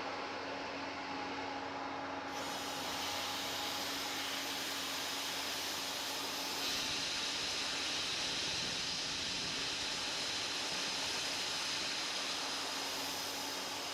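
Air Venturi 4500 high-pressure compressor running steadily while filling a tank, with its cooling system on: a continuous hissing machine noise over a steady hum, which grows brighter about two seconds in and again near seven seconds. No air leak is heard at the resealed pressure-gauge fitting.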